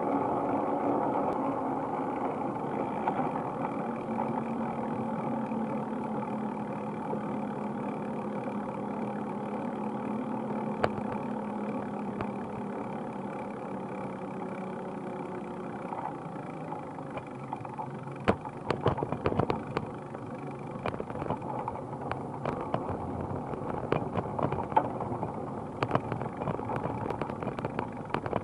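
Riding noise picked up by a bicycle-mounted camera: a steady hum of rolling tyres and wind. In the second half it is broken by scattered clicks and rattles as the bike rolls over rougher paving.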